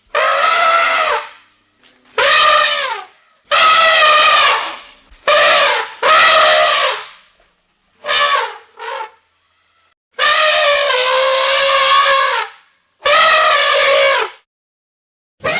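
A run of edited elephant trumpet sound effects for a cartoon elephant: about nine separate loud calls, each lasting half a second to two seconds and bending in pitch, with short gaps between them. The longest call comes about two-thirds of the way through, and another starts right at the end.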